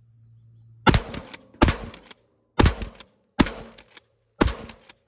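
Rock Island 12-gauge pump-action shotgun fired five times in quick succession, about one shot a second, beginning about a second in, with the pump worked between shots.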